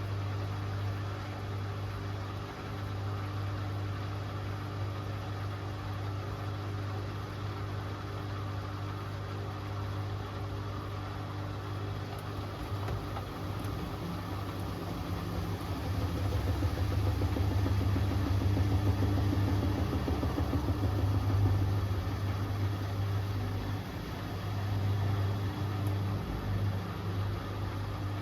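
Hoover Axi 10kg washing machine running with a steady low motor hum, growing louder with a pulsing rumble for several seconds past the middle, then easing off.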